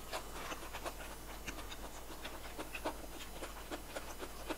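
Close-miked chewing of sticky rice and raw vegetables: an irregular run of soft wet mouth clicks and smacks.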